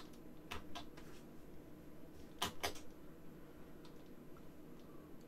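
Short sharp clicks of a computer being worked: a light pair about half a second in and a louder pair about two and a half seconds in, over a faint steady hum.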